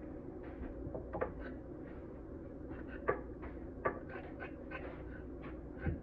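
Kitchen knife blade scraping the skin off raw carrots in quick short strokes, which come faster in the second half, with a few sharper ticks and a low thump near the end.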